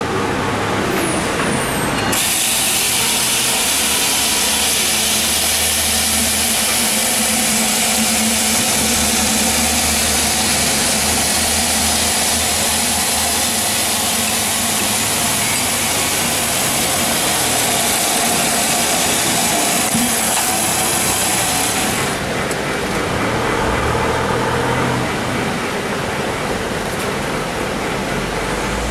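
Electric log slasher, a chainsaw-type chain and long bar driven by a motor on a wheeled cart, running and cutting across a large log. It makes a loud, steady noise that starts about two seconds in, and its highest tones drop away about three-quarters of the way through.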